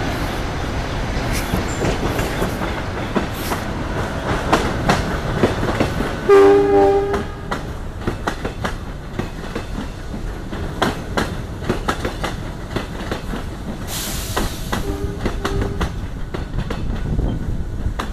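A passing train: a steady rumble with rail clatter. A horn sounds a loud blast about a third of the way in and a shorter, fainter one later on.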